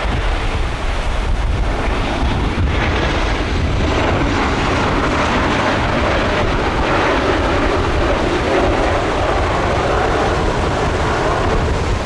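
Jet airliner engines, a roar that builds from about four seconds in and stays loud, over strong wind buffeting the microphone.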